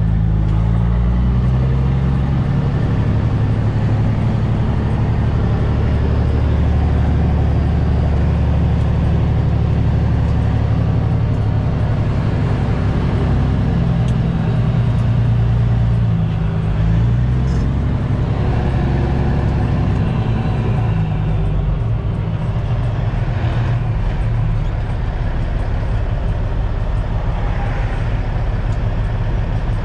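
Kenworth T800 semi truck's Caterpillar C15 diesel engine running under load as the truck pulls away and drives slowly, its pitch stepping up and down with the gear changes. Heard from inside the cab with the window down.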